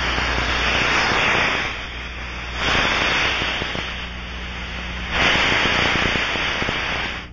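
Pressure air leak heard through an Ultraprobe ultrasonic leak detector: a rushing hiss with a crackle in it. It swells and fades, growing louder three times.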